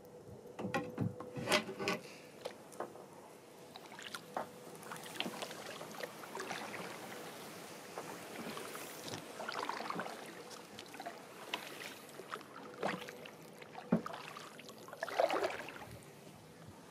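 Future Beach Adventure 8.6 kayak gliding through a reed bed, reed stems brushing and scraping along the hull in irregular rustles and knocks, with small trickles of water. A louder scrape comes about 15 seconds in.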